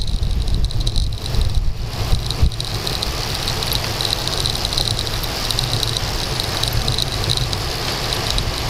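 Wind buffeting the microphone of a handlebar-mounted action camera on a road bike descending at speed, over a low rumble of tyres on asphalt, with a steady high buzz throughout. The buffeting is gusty for the first couple of seconds, then evens out.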